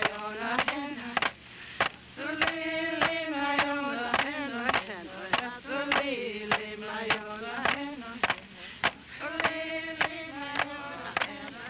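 Voices chanting a song together, held notes stepping up and down, over sharp percussive knocks a little under two a second.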